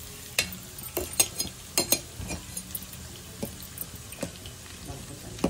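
Metal spoon stirring boiled soya chunks in a steel pot: a string of irregular clinks and scrapes of metal on metal as the wet chunks are turned over.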